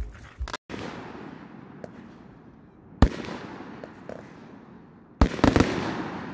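Ground-launched consumer fireworks firing shots into the air: a small pop near the start, then sharp bangs about three and five seconds in, the second followed by a quick run of crackling pops. Each bang trails off slowly.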